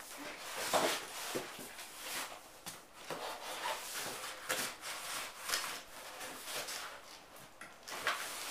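Bicycle packaging being handled and pulled apart: irregular rustling and crinkling of wrapping and cardboard, with scattered scrapes and small knocks.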